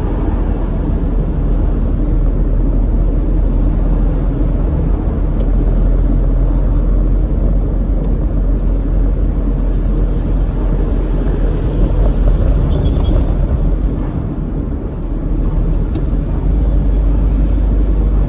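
Steady road and traffic noise of a car driving in heavy city traffic, a continuous low rumble that dips briefly near the end.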